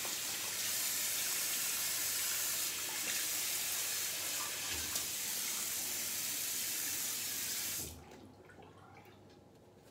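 Bathroom tap running while a badger shaving brush is rinsed out under it. The water is shut off about eight seconds in.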